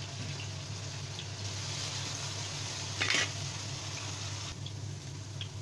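Potato chunks sizzling as they fry in oil in a non-stick wok, being turned with a spatula and chopsticks, with a short louder burst about three seconds in.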